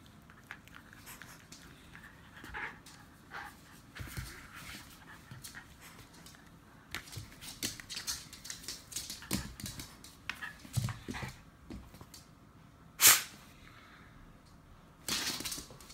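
Border terrier playing tug with a braided rope toy, making short dog noises and scuffling in scattered bursts, with one loud sharp sound about 13 seconds in.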